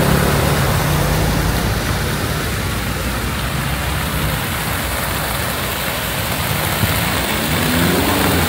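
Street traffic: a steady hiss of passing cars, with a vehicle engine accelerating, its pitch rising, near the end.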